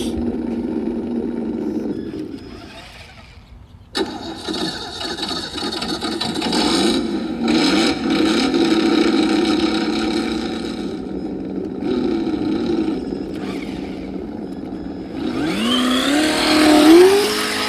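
Simulated V8 turbo engine sound from a speaker sound module on a Traxxas Mustang 4Tec 2.0 RC car. It fades out two to three seconds in, comes back abruptly about four seconds in and idles steadily with a hiss over it. Near the end it revs up, the pitch climbing in steps.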